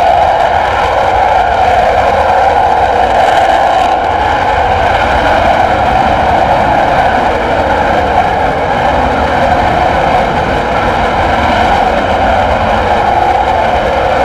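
Jet engine noise from a Panavia Tornado's twin RB199 turbofans, loud and steady with no break.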